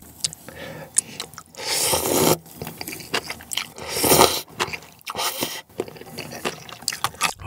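Cold naengmyeon noodles slurped noisily from a bowl of broth, about three long slurps, with chewing and sharp little clicks in between.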